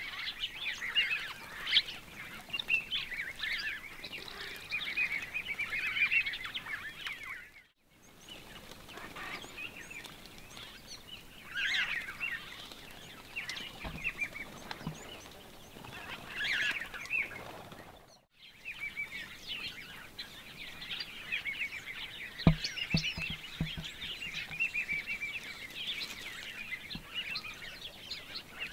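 Many small birds chirping and chattering together in a dense, busy chorus that breaks off twice for a moment. A few low knocks sound about two-thirds through.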